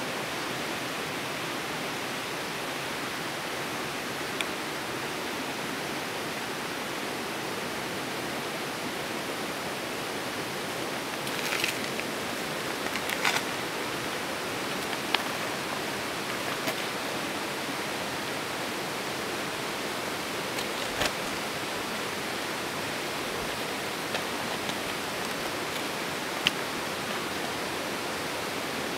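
Steady, even hiss of outdoor background noise, with a few faint, short clicks and ticks scattered through.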